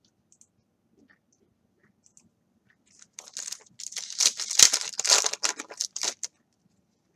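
A 2016 Donruss Optic baseball card pack's foil wrapper torn open and crinkled by hand: a run of crackling and tearing starting about three seconds in and lasting about three seconds, after a few faint ticks.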